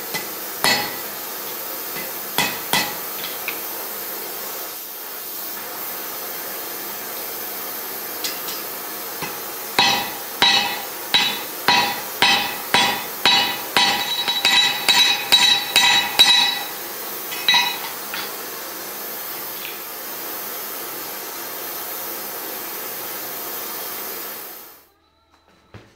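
Hand hammer striking the red-hot end of a 3/8 in. steel rod in a heading tool, upsetting it into a countersunk rivet head. The blows ring metallically: a few scattered strikes, then a run of about a dozen at roughly two a second. The steady hiss of an oxy-fuel torch flame runs underneath.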